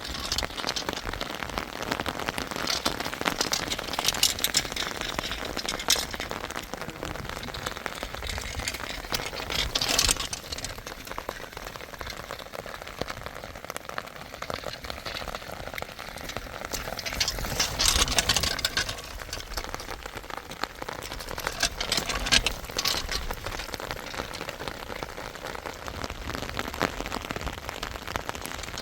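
Steady rain, many drops pattering close by, swelling louder several times.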